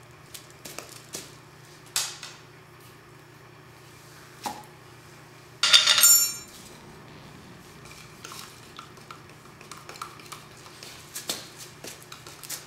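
Scattered clinks and knocks of hard objects. The loudest is a ringing clatter about six seconds in, like metal or crockery knocking together.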